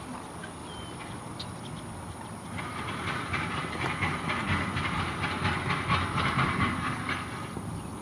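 Rapid pattering and splashing on the water, starting about two and a half seconds in and stopping near the end: American coots rushing at each other across the surface in a territorial chase.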